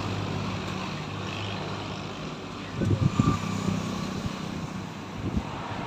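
Steady low engine hum, with a few low thumps about three seconds in.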